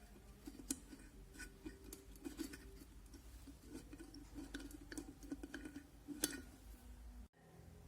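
Faint, scattered small clicks and taps of hand work on an electric kettle's base, small plastic and metal parts being handled and fitted, with two sharper ticks, one under a second in and one near the end. The sound cuts out briefly near the end.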